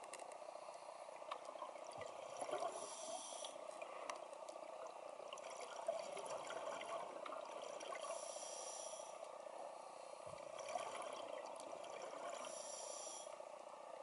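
Underwater ambience of a scuba dive: a steady muffled hiss with scattered clicks, and a diver's regulator breathing, a hissing draw of breath coming back every four to five seconds.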